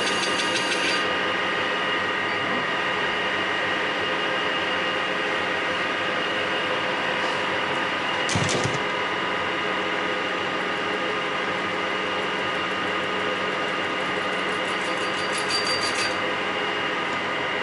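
Metal lathe running, a steady mechanical hum with several steady tones. A short clunk comes about eight seconds in as the chuck guard is swung down, and brief fast ticking comes near the start and again near the end.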